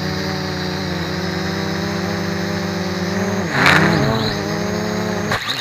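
MJX X400 V2 quadcopter's motors and propellers buzzing steadily. About three and a half seconds in, the pitch dips and wavers with a short loud clatter, and near the end the buzz cuts off suddenly.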